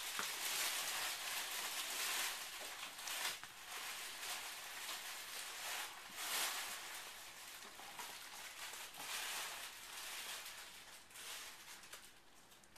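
Irregular rustling and scratching as a Vizsla puppy wriggles on a fur blanket and mouths its ball and rope toy, rising and falling with its movements, with no barking.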